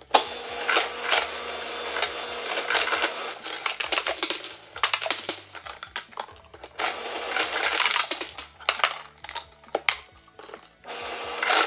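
Refrigerator door ice dispenser dropping cubed ice into a plastic sports squeeze bottle, a dense clatter of cubes striking the bottle. It pauses briefly about halfway, runs again, and starts once more just before the end.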